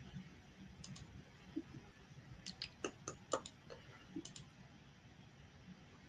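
Faint, irregular computer mouse clicks, about eight or nine, mostly bunched together in the middle, made while a screen share and slideshow are being set up.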